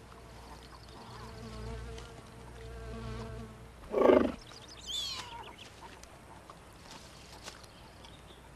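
Newborn cougar kittens mewing: a loud short cry about four seconds in, then a thinner, higher mew that falls in pitch a second later, over a faint steady hum.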